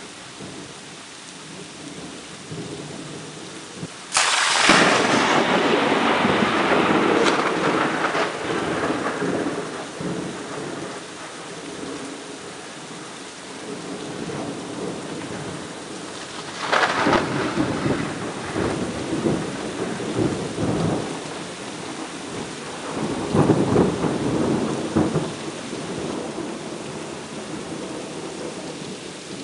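Thunderstorm: steady rain with thunder. A sudden loud crack of thunder about four seconds in rumbles on for several seconds, and two more peals roll in later.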